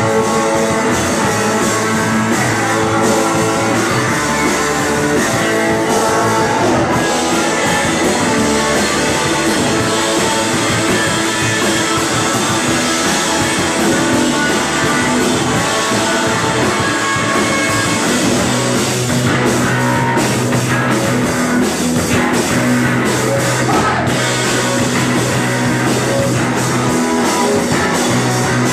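A rock band playing live and loud: electric guitar, bass guitar and drum kit in a continuous full-band passage.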